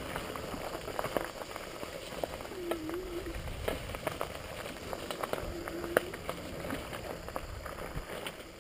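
Bicycle tyres rolling over a dry, leaf-covered dirt trail: a continuous crackle with many sharp clicks and rattles from the bike over bumps, and a sharper knock about six seconds in. Twice a brief low wavering tone sounds in the middle.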